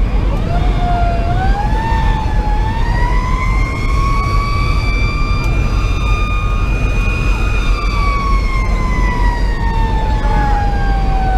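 A fire engine's Federal Q2B mechanical siren winds up smoothly over several seconds, holds a high wail, then slowly coasts down in pitch over the last few seconds. It is heard from inside the cab over the steady low rumble of the truck's Detroit Series 60 diesel and the road.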